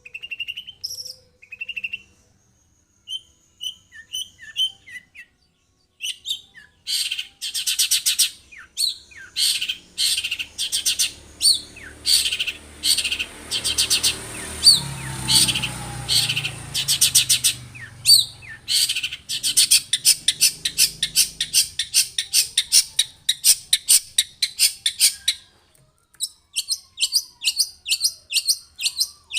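Long-tailed shrike (cendet) singing: a few short, scattered chirps at first, then from about six seconds a long run of harsh, rapidly repeated notes, several a second, that goes on for nearly twenty seconds before breaking off and resuming faster near the end. A low rumble sits under the middle of the song.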